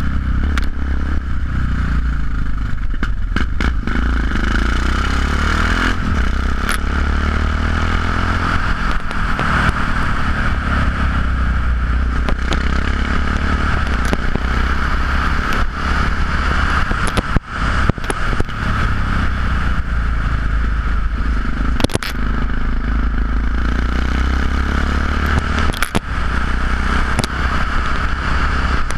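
Yamaha XT 660X single-cylinder engine running through Leo Vince aftermarket exhausts while the bike is ridden along a lane, a steady low exhaust note. A few sharp knocks sound along the way, and the level dips briefly a little past halfway.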